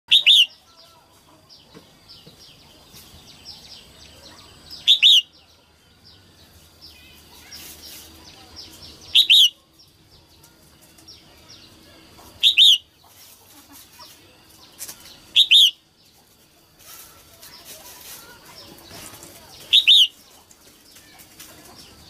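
Female red-whiskered bulbul calling, a loud quick double note repeated six times at intervals of a few seconds, with fainter chirps between. It is the kind of hen call that bird keepers play to rouse male bulbuls.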